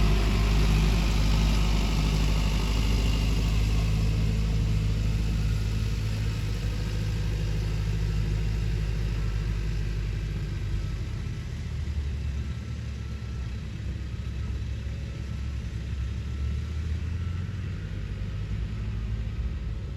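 A vehicle engine running steadily at a low idle, a deep hum that slowly grows fainter.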